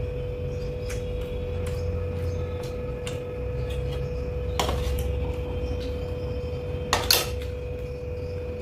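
A metal spoon clattering against a steel plate twice, about halfway through and again a couple of seconds later, the second time louder, over a steady low hum.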